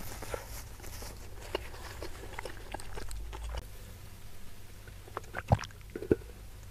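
A person drinking water from a glass, close to the microphone. Faint mouth clicks and small sounds come first, then two sharp swallowing gulps about half a second apart near the end.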